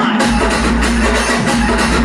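Music with drums played through a 5.1 home theatre speaker system, a heavy bass line coming in about a quarter of a second in.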